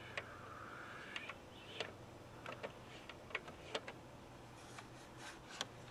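Faint, irregular clicks, about ten of them, of buttons being pressed on a stage lighting console, over a low steady hum.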